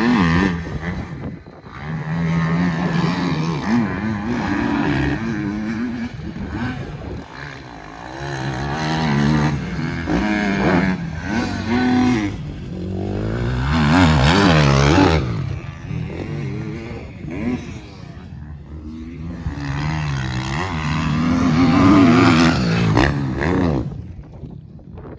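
KTM 250 SX-F factory motocross bike's single-cylinder four-stroke engine revving hard and then easing off again and again, rising and falling in pitch as it laps a dirt track. It grows loudest as it passes close, about halfway through and again near the end.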